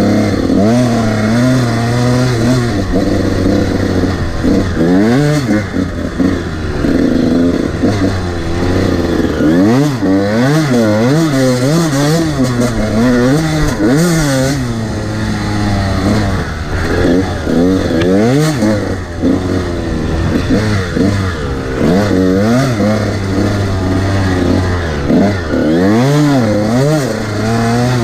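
Honda CR125 dirt bike's two-stroke single-cylinder engine revving up and down as it is ridden along a sandy trail, the pitch rising and falling again and again as the throttle is worked.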